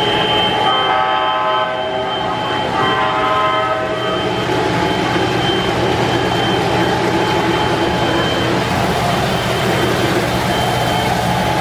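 Onboard sound system of an MTH Premier O-scale Amtrak F40PH model locomotive sounding two horn blasts, each about a second long, over the steady running rumble of the passing train on three-rail track.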